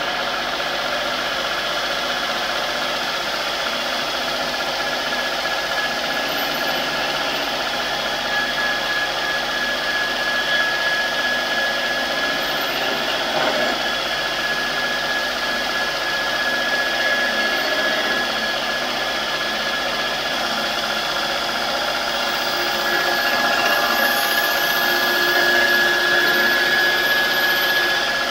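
Electric belt grinder running steadily while a kitchen knife blade is ground against its abrasive belt. The edge is being trued down to take out a chip in it. The sound gets a little louder about three-quarters of the way through.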